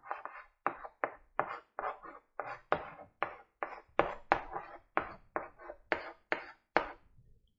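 Stick of chalk writing on a blackboard: a run of short scratching strokes, about three a second, as letters are written out.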